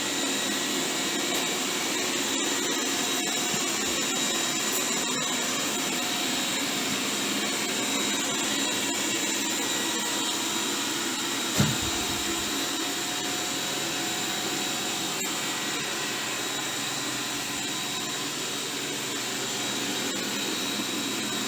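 Robot vacuum cleaner running: a steady whirring hiss with a constant high whine, and a single knock about halfway through.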